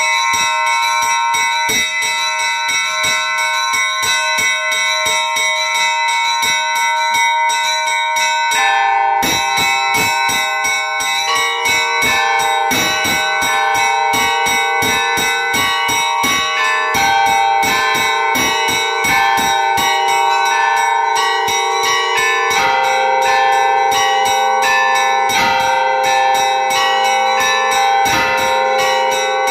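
Church bells ringing a peal: several bells struck in quick succession over their sustained ringing. Lower-pitched bells join about nine seconds in, and a deeper one later on.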